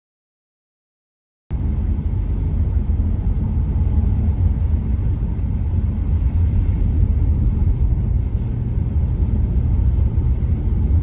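Dead silence for about the first second and a half, then the Toyota Corolla Cross driving: a steady low rumble of road and running noise.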